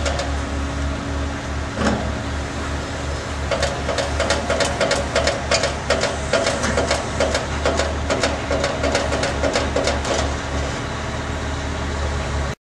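Crane engine running steadily with a low pulsing hum. From about three seconds in, a fast run of clicks and a pulsing mid-pitched tone joins it for about seven seconds.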